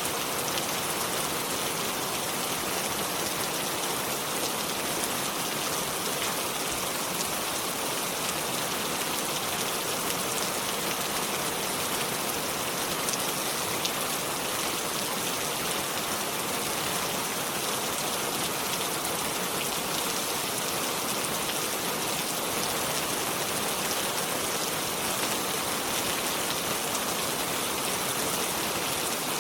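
Steady rain falling, a constant even hiss of drops with no lulls or thunder.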